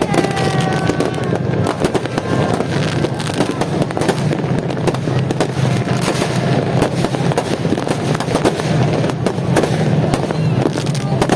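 Fireworks going off continuously: many overlapping bangs and crackles in rapid succession.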